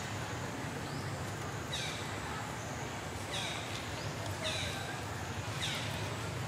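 A series of short, high-pitched animal calls, each falling in pitch, repeated about every second to second and a half over a steady low hum.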